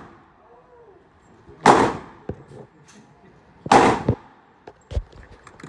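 Two gunshots about two seconds apart, each a sharp crack with a short echoing tail, followed by a fainter crack near the end.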